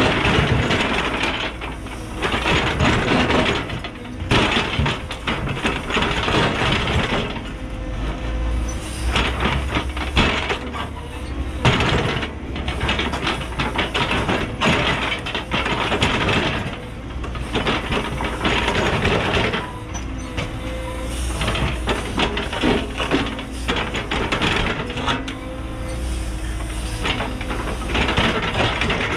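Cat 314E excavator's ripper shank tearing through extremely hard rock: scraping, grinding and clattering of rock on steel that swells with each pull, over the steady running of the excavator's diesel engine.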